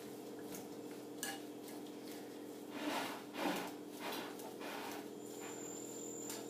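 Fork mashing boiled potatoes in a ceramic bowl: soft, scattered scrapes and knocks of the fork against the bowl.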